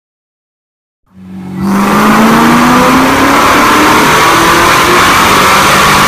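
Modified C6 Corvette V8 on a chassis dyno at full throttle. It comes in loud about a second in, and its pitch climbs slowly and steadily through the pull.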